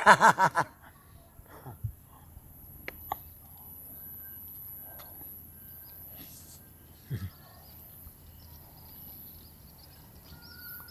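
A man's voice briefly at the start, then quiet outdoor ambience with faint bird chirps and a few soft clicks.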